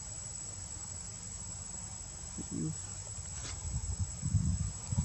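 A steady, high-pitched insect drone, with low rumbling that swells near the end.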